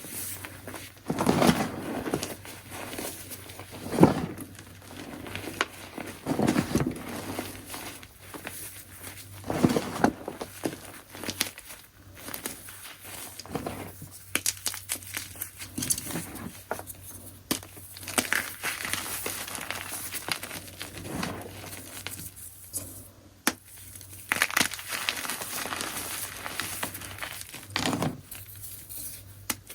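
Chunks of gym chalk being crushed, a series of soft, crunchy crumbling sounds at irregular intervals, with a few sharper, louder crunches among quieter grinding and crumbling.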